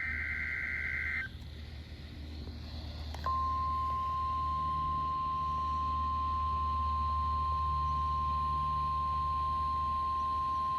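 NOAA Weather Radio required weekly test signal. The tail of a SAME digital header data burst cuts off about a second in, and a couple of seconds of radio hiss and hum follow. The steady 1050 Hz warning alarm tone then starts about three seconds in and holds.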